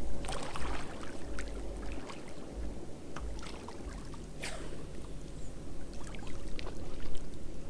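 Shallow lake water lapping and splashing, with small sharp splashes now and then and a stronger one about four and a half seconds in, over a low, uneven rumble.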